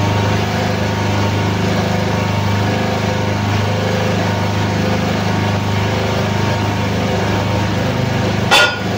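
Hydraulic forklift-tire press running steadily under load as it forces the rim out of a solid 700-12 forklift tire. Near the end comes a single sudden loud bang as the rim breaks free of the tire, hard enough to shake the camera.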